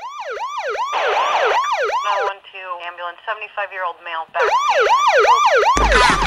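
Cartoon police-siren sound effect: a fast yelping wail that sweeps up and down about three times a second. About two seconds in, it gives way for a couple of seconds to a choppy, warbling chatter, then the yelp returns. A loud low rumble comes in near the end.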